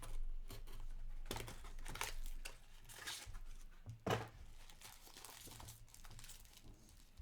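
Trading cards and their packaging being handled, a run of crinkling and rustling with one sharper snap about four seconds in.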